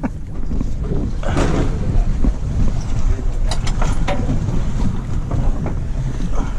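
Wind rumbling on the microphone aboard a boat at sea, with a few sharp clicks around the middle.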